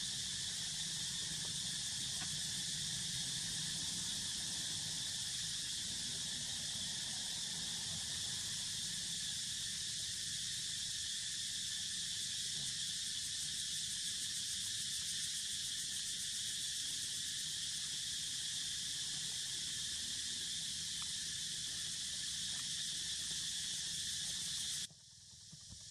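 Steady high-pitched chorus of insects, a continuous shrill drone with a fine rapid pulse. It cuts out suddenly about a second before the end and slowly comes back.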